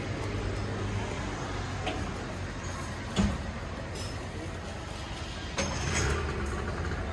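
Outdoor street ambience in a narrow pedestrian lane with a café terrace: a steady background hum and faint voices, broken by a sharp knock about three seconds in and another short clatter about two seconds later.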